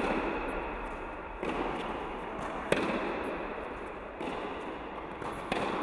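Tennis ball struck back and forth by rackets in a rally, echoing in an indoor hall: a sharp racket hit at the very start, another about two and a half seconds later, and softer knocks in between and near the end.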